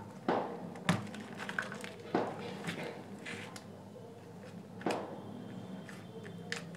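A few sharp clicks and knocks, spaced irregularly, as fingers handle the opened plastic housing of a JBL Pulse speaker and work a wire connector off its circuit board, over a faint steady hum.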